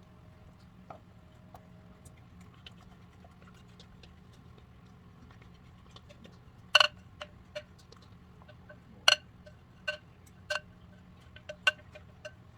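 A kitchen utensil clinking and tapping against a bowl or pan. The taps come irregularly, mostly in the second half, with several loud ones that each leave a short ringing note. The batter is being scraped out into the loaf pan.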